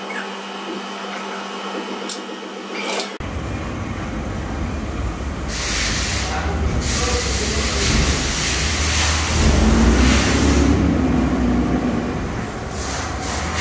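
Machine-shop noise: a steady low mechanical rumble with several long bursts of hiss, changing abruptly about three seconds in.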